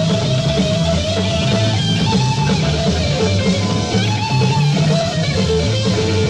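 Live hard rock from a 1970 concert recording: electric guitar playing lead lines over a moving bass line.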